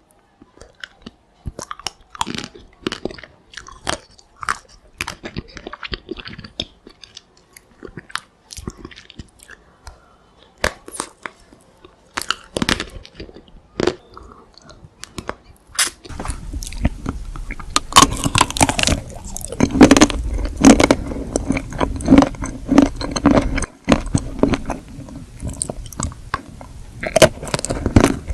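Close-up sound of teeth cracking through the chocolate shell of an ice cream bar, with crisp crackles, then chewing and wet mouth sounds. About 16 seconds in the eating gets louder and denser, with a steady low rumble underneath.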